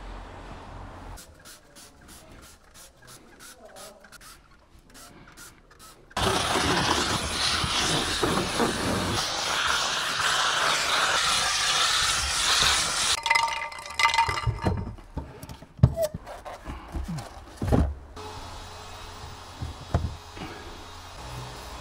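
Steam cleaner blasting steam: a loud, steady hiss that starts suddenly about six seconds in and runs for about seven seconds, followed by scattered knocks and bumps.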